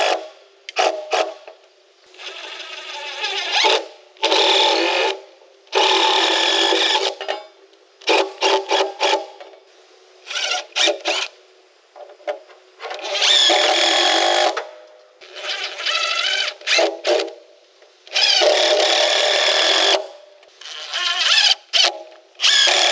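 Cordless drill driving long wood screws into a timber post made of two 6x6s. It runs in repeated spins of one to two seconds each, with clusters of short, quick trigger bursts in between.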